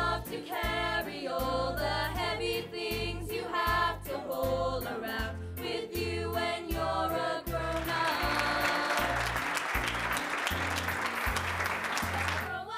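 A girls' pop chorus sings in unison at microphones over a backing track with a steady bass beat. About eight seconds in, the song ends and the audience breaks into applause, which stops shortly before the end.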